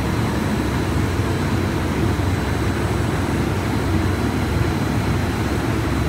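Biomass gasifier burner and steam boiler plant running: a steady low rumble with a faint high whine over it.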